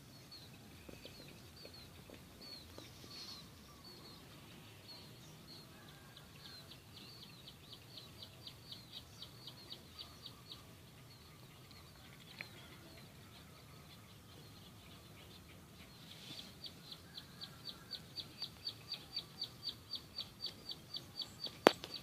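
A bird calling in long runs of short, sharp, high notes, about four to five a second, the second run building louder, over a faint steady low hum.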